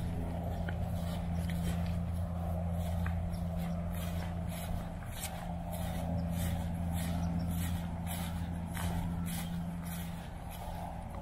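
Footsteps on a trail, about two a second, over a steady low hum.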